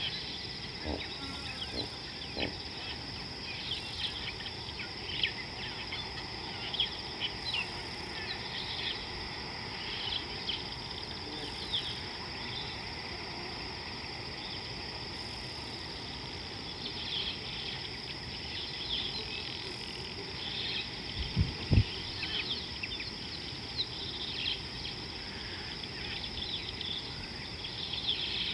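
Steady, high-pitched insect drone with many short bird chirps over it throughout. A couple of low thumps stand out about three-quarters of the way through.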